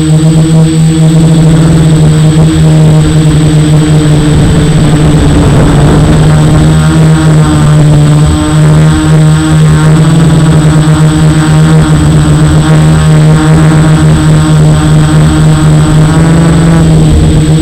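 F450 quadcopter's motors and propellers buzzing in flight, a steady low-pitched drone with a constant high whine, its upper tones shifting as the throttle changes.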